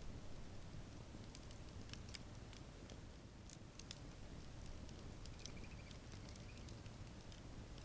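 Outdoor campfire crackling softly, with scattered small pops and snaps over a low steady rumble.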